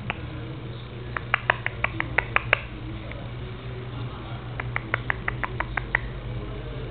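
Squeaky dog toy squeaked in two quick runs of about seven short, high squeaks each, one about a second in and one near the end, over a steady low hum.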